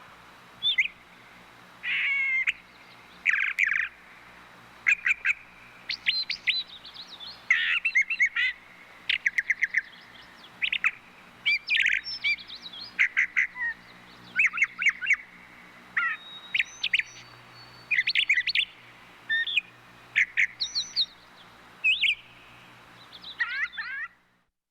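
Thrushes singing: a quick series of short, clear whistled and chirping phrases, one after another with brief gaps between them, which cuts off sharply near the end.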